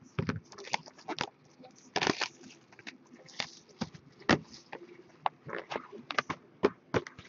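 Plastic shrink wrap crinkling and tearing as a sealed cardboard box of trading cards is unwrapped and opened by hand. The crackles and clicks come irregularly.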